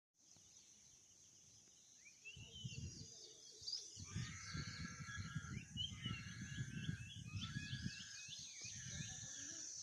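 Many small birds chirping and twittering over one another, starting about two seconds in and growing busier, over a steady high hiss and a low rumbling noise.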